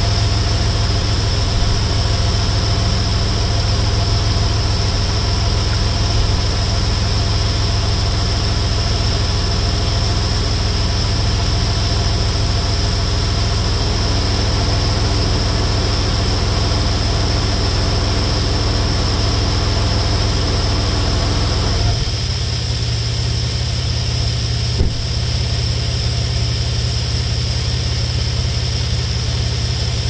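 1992 Toyota 4Runner engine idling steadily while its air conditioning is being charged with R134a refrigerant. About two-thirds of the way through, the sound changes abruptly and turns duller, and a single click follows a few seconds later.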